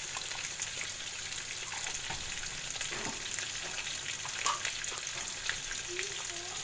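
Ground onion-tomato gravy frying in butter in a steel kadai: a steady sizzle with fine crackles.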